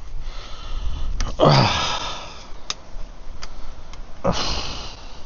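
A man's heavy breathing with a falling groan of effort, a few light metallic clicks, and a hard breath out or sniff near the end.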